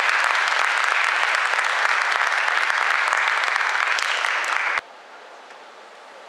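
Audience applauding steadily, then cut off abruptly about three-quarters of the way through, leaving only quiet hall background.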